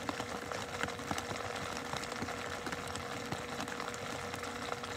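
A steady mechanical hum with a constant tone held throughout and a few faint ticks.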